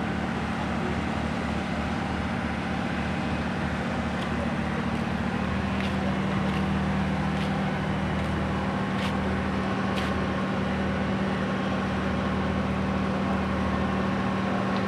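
Vehicle engine running steadily with a low hum, with a few faint sharp clicks in the middle.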